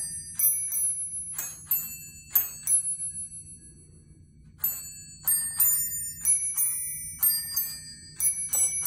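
Musical Christmas bell-chime decoration, a hanging string of small brass bells, playing a carol melody one ringing note at a time, with a pause of about a second and a half around the middle before the tune carries on.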